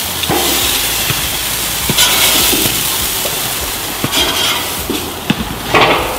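Meat sizzling on a hot barbecue grill: a steady hiss with scattered sharp pops and clicks, swelling in bursts, loudest just before the end.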